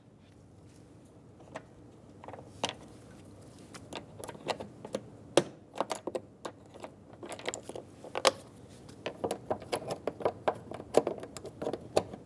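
Scattered light clicks and small rattles of a screwdriver and plastic door trim being worked by hand, sparse at first and coming thick and fast after about four seconds.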